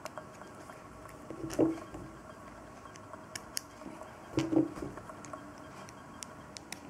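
Small LEGO plastic parts being handled as axle pins are pushed into the little tires: a few light clicks and two soft knocks, about a second and a half in and again near the middle, over a faint steady hum.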